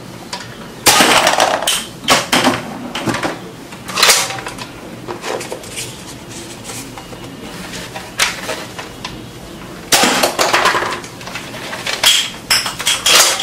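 Spring-powered toy foam-dart blaster being handled and fired: several sharp plastic snaps and clatters, about a second in, around four seconds in, and again near ten seconds and near the end, with quieter plastic clicks of darts being loaded and the blaster being cocked in between.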